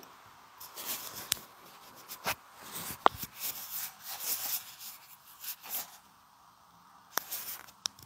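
Handling noise of a clip-on lavalier microphone being unclipped and turned over in the hand: close, scratchy rustling and scraping with a sharp click about three seconds in, a few more scrapes near the end.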